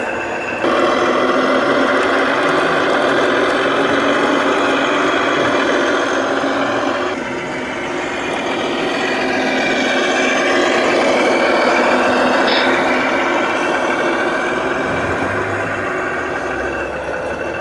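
Radio-controlled model trucks running with their sound modules playing diesel truck engine noise. The sound steps up suddenly about a second in, drops back about seven seconds in, then rises and falls in pitch like revving.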